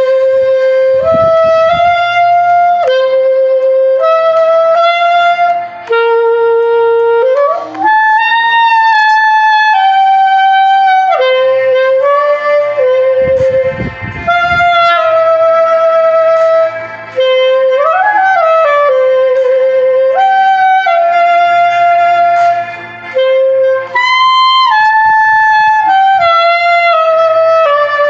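Clarinet playing a melody of held notes, with short breaks between phrases. About seven seconds in the pitch slides up into a note, and around eighteen seconds it bends quickly up and back down.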